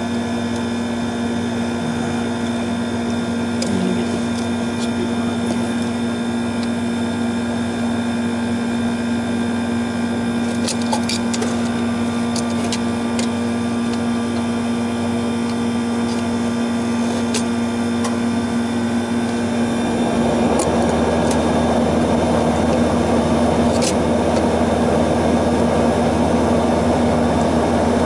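Steady hum of a running air-conditioning condensing unit, with a few light clicks of a screwdriver on the metal contactor parts. About 20 seconds in, a louder rushing noise joins the hum and keeps on.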